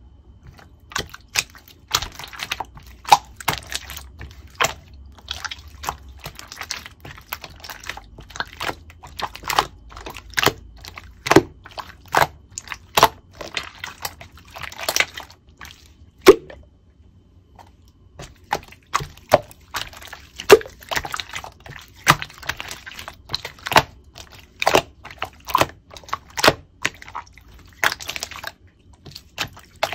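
Hands pressing and poking clear slime, making irregular sticky clicks and wet pops, with a short pause about halfway through.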